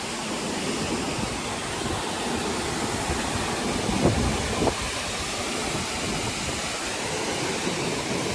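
Steady rushing roar of a large waterfall, an even wash of falling water with no let-up. A brief faint voice-like sound rises about halfway through.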